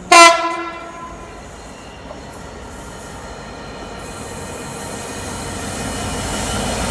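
Train horn sounding one short blast, then a train approaching with rail noise and high wheel squeal growing steadily louder.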